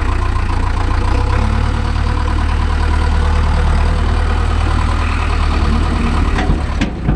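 Diesel engine of a farm vehicle running steadily at low speed, its note shifting about a second and a half in. A few sharp knocks near the end.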